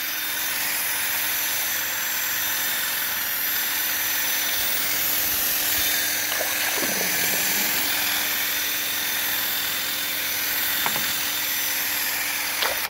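Electric drill spinning a long-shafted wire paddle mixer in a drum of water: a steady whir with churning water, mixing nematodes in. It stops abruptly at the very end.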